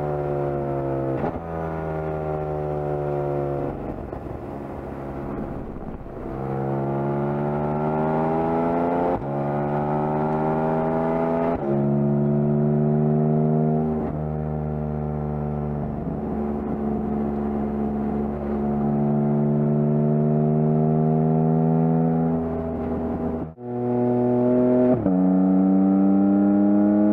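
2022 Porsche 718 Cayman GT4 RS's naturally aspirated 4.0-litre flat-six pulling hard on track, its pitch climbing with the revs and dropping sharply at each quick upshift, over and over. Some stretches hold a steadier pitch. Near the end the sound cuts out for a moment before the engine climbs again.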